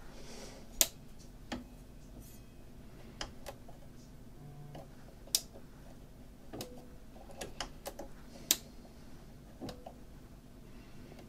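Scattered light clicks and taps of fingers and the rubber mat on a portable record player's bare metal platter, with three sharper clicks about a second in, near the middle and a little later, over a faint steady hum.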